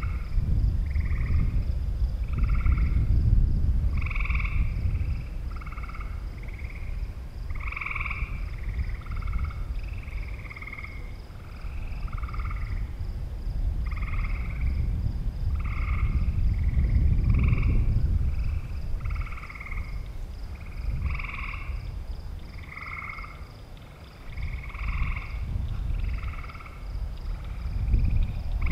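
Frogs calling: short croaking calls repeated roughly once a second. Under them, wind rumbles on the microphone, swelling and fading.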